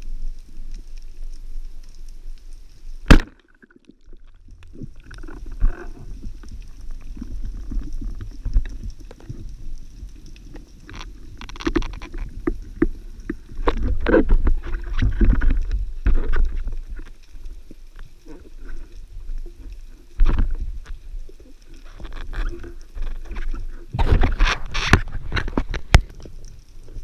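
Underwater water movement and bubbling picked up by a diver's camera: a low steady rumble with scattered clicks and knocks. A single sharp crack comes about three seconds in, and clusters of knocks come midway and near the end.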